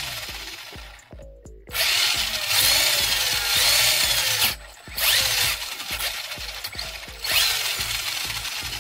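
Brushed electric motor and drivetrain of a Kyosho Optima Mid RC buggy, run on the bench with its wheels off the ground. It spins up in repeated throttle bursts, each starting with a rising whine, and stops briefly between them.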